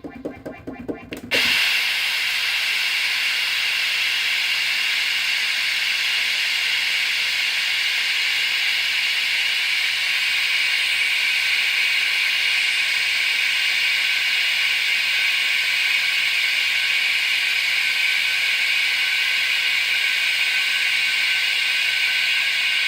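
Waldorf Quantum synthesizer: a few short notes, then about a second in a loud, steady hiss-like noise breaks out, strongest in the upper middle of the range. This is a fault: the played notes set the synth off across the whole audio band, and it keeps sounding for about 24 seconds before dying away.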